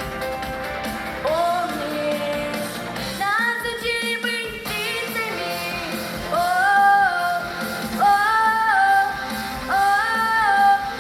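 A woman singing a Russian song over instrumental accompaniment. Several phrases slide up into long held notes.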